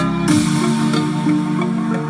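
Electronic dance music played through a large outdoor sound system during a sound test. About a third of a second in the drum beat drops out, leaving held electronic chords over a stepping bass line.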